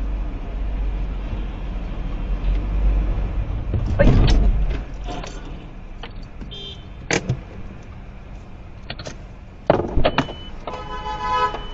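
Dashcam recording from inside a car: steady engine and road rumble. About four seconds in there is a loud knock and scrape as an electric scooter goes down in front of the car, followed later by a few sharp knocks and clicks.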